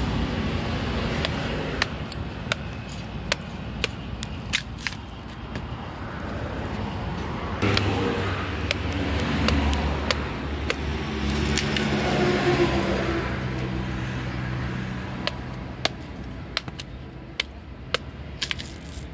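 A heavy knife chopping into palmyra palm fruit husks, giving sharp irregular cracks every second or so that come thicker near the end. A motor vehicle's engine passes in the middle, swelling and rising in pitch.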